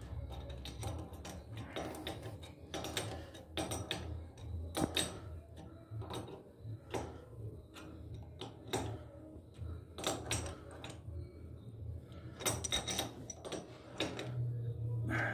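Adjustable wrench tightening the nut of a braided flexible supply hose on a chrome tee fitting, giving irregular light metallic clicks and taps as the jaws shift and grip.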